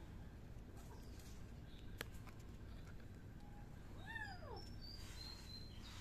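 A kitten meowing once, briefly, about four seconds in; the call rises and then falls in pitch.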